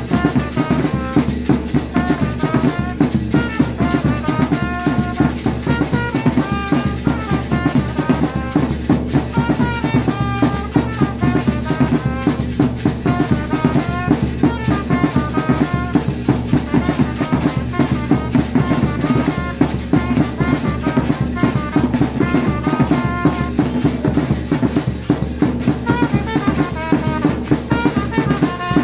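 Live drum-and-brass band playing: large double-headed bass drums and a hand drum beaten in a fast, steady rhythm, with trumpets playing short melodic phrases over the drumming.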